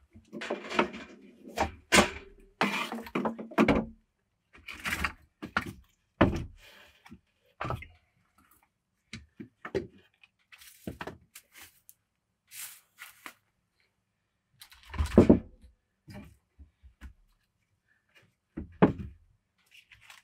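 Irregular knocks, thuds and clatter of objects being handled in a small room. A busy cluster comes in the first few seconds, then scattered lighter knocks, with the loudest thud about fifteen seconds in and another near the end.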